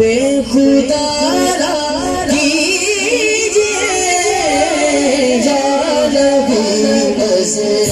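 A man singing a naat, an Urdu devotional song in praise of the Prophet, in long ornamented phrases that glide up and down in pitch.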